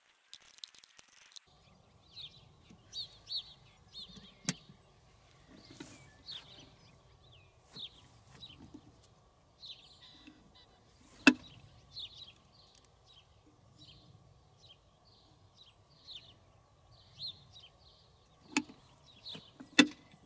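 Birds chirping over and over, with a few sharp clicks and knocks as the lure machine and its line spool are handled; the loudest click comes about eleven seconds in, and two more near the end.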